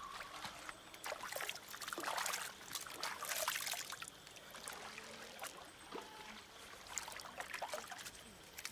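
Water splashing and trickling as hands scoop and splash in shallow water, with irregular drips and louder splashes about two and three and a half seconds in.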